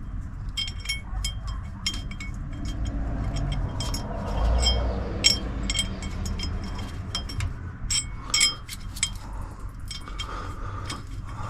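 Steel bolts clinking against each other and against metal as they are picked up and fitted: a long run of short, ringing metallic clinks, irregularly spaced.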